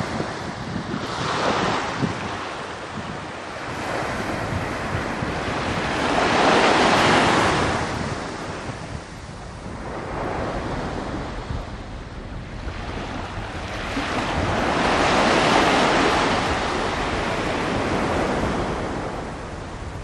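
Wind and wave noise by the harbour water: a rushing hiss that swells up and fades three times, over a low rumble of wind on the microphone.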